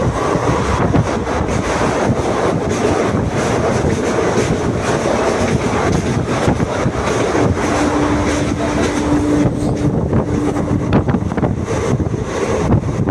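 Passenger express train running on the rails, a steady loud rumble and rattle with wind on the microphone; a single steady tone sounds for about three seconds past the middle.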